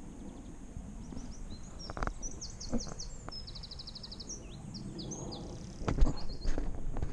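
A small songbird singing a fast, high song of quick notes and rapid trills, over a low rumble. A few dull knocks come through it, the loudest about six seconds in.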